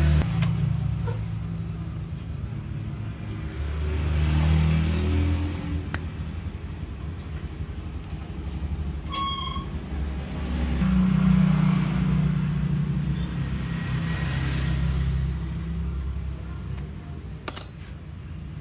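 Low engine rumble of motor vehicles going by, swelling and fading over several seconds. A short high tone sounds about halfway through, and a sharp click comes near the end.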